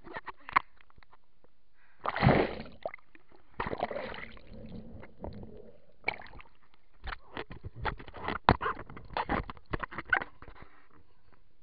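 Lake water splashing and sloshing over a waterproof action camera as it bobs at the surface and goes under, with a splashy burst about two seconds in and churning after it. In the second half, a run of sharp taps and knocks on the camera housing, underwater and then against the inflatable tube.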